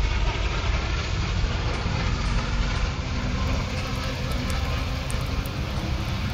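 A loud, steady rumbling noise, heaviest in the low end.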